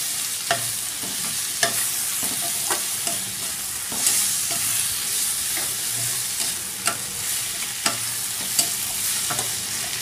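Diced onion, capsicum, tomato and green chillies sizzling in hot oil in a steel kadai over a high gas flame, stir-fried with a metal spatula that clinks sharply against the pan at irregular intervals, about once a second.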